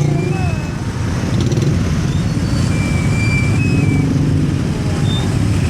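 A motor vehicle engine running steadily and loudly.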